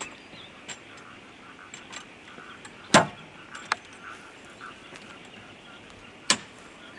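Awning pole and its clips being fitted to the camper, heard as a few sharp knocks and clicks: the loudest about three seconds in, a lighter click just after, and another knock near the end.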